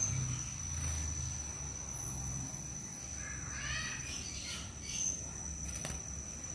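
A quick run of short, high, rising chirps about three and a half seconds in, from a young brown-throated sunbird. A steady high-pitched tone runs under it.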